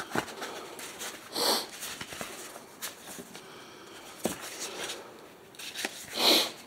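A person sniffing twice, about five seconds apart, the second sniff louder, with scattered light clicks between.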